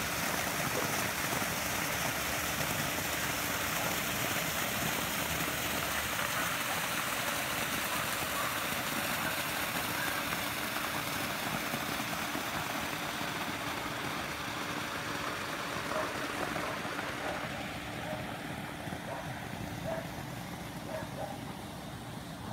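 Water from a pool's waterfall feature splashing steadily into the pool, a continuous rushing hiss with a faint steady hum under it, growing fainter about two-thirds of the way through.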